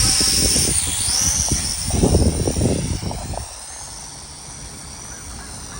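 Small consumer quadcopter drone's propellers whining at a high pitch after spinning up; the pitch dips briefly about a second in and rises again, and the sound grows quieter about three and a half seconds in.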